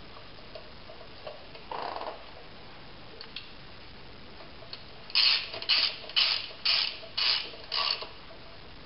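Hand ratchet wrench clicking in six short runs about half a second apart as a nut is tightened on a bolt at the wheel hub. A faint brief clink comes about two seconds in.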